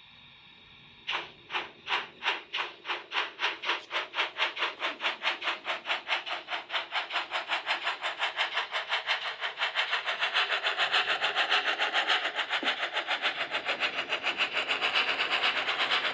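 Model T3 steam tank locomotive's sound effects: steam chuffs that start about a second in, slow at first, and quicken steadily as the engine gets under way, with a growing hiss beneath them.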